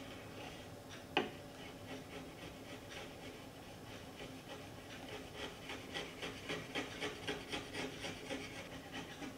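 Chisel held flat and pushed in short, quick strokes to trim iron-on edge banding flush with a plywood panel edge: a faint run of scraping shaves, about three to four a second in the second half. One sharp click about a second in.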